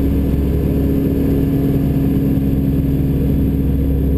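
Tecnam P92 ultralight's piston engine and propeller droning at a steady pitch, heard from inside the cockpit in flight as the aircraft banks steeply.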